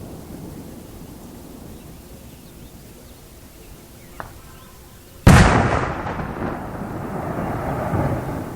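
Firework explosion: a faint pop about four seconds in, then a loud, sudden blast a little after five seconds that dies away in a rumble over the next three seconds.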